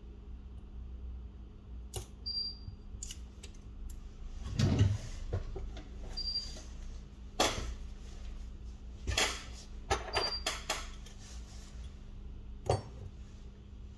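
Small tools and phone parts clicking, tapping and clinking on a work surface during smartphone disassembly: scattered sharp clicks, with a heavier knock about five seconds in.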